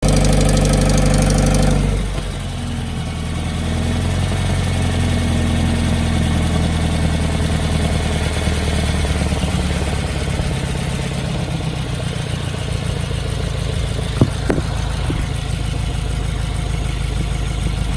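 2018 Subaru WRX's turbocharged flat-four engine, running through a muffler- and resonator-delete exhaust: revved for about two seconds, then dropping back and running steadily. A couple of short sharp clicks come about fourteen seconds in.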